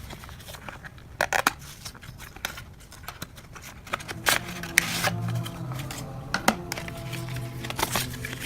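Packaging being handled and opened: crinkling, tearing and sharp clicks, over background music.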